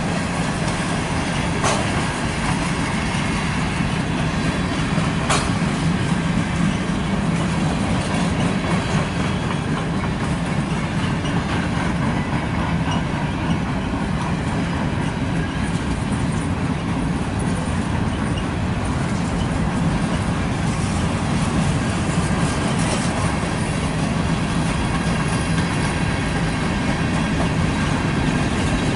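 Freight cars of a CSX manifest train rolling steadily past: a continuous rumble of wheels on rail, with two sharp clanks in the first few seconds.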